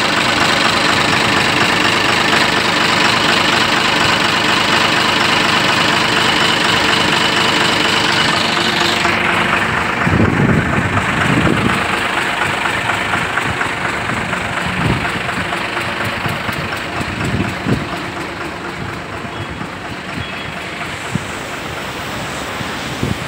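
Diesel truck engine idling steadily up close. About nine seconds in the sound changes abruptly to a duller, more distant engine hum, with gusts of wind buffeting the microphone.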